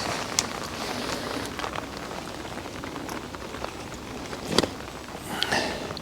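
Rain falling steadily, with scattered sharp drop ticks and a louder knock about four and a half seconds in.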